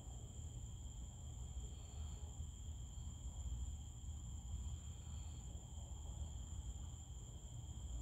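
Steady, unbroken high-pitched chorus of night insects, over a low rumble.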